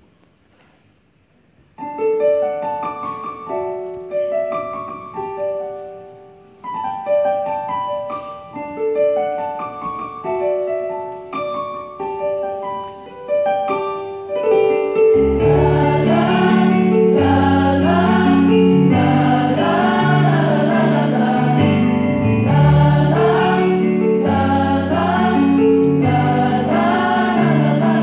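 A piano introduction begins about two seconds in, playing a slow melody of single notes. About halfway through, a mixed youth choir comes in singing a gospel hymn with the piano, louder and fuller than the opening.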